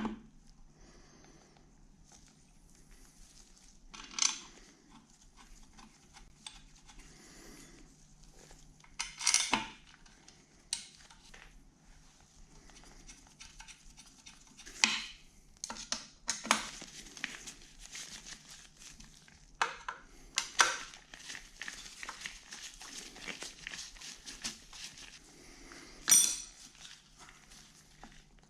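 Metal machine parts and hand tools clinking and knocking during bench assembly of a milling-machine head, in separate strikes at first, then a long stretch of quick small clicks and rattles, with the sharpest clink near the end.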